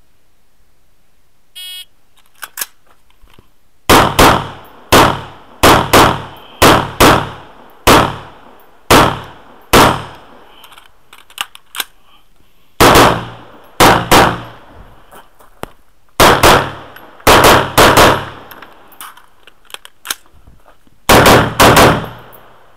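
Shot-timer start beep, then a course of fire from a semi-automatic AR-15-style carbine. The shots come mostly in quick pairs and short strings, with two pauses of a few seconds between strings.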